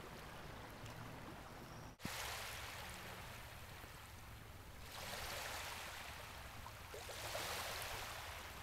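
Small waves lapping and washing over a shallow sandy shore, a soft hiss that swells twice in the second half.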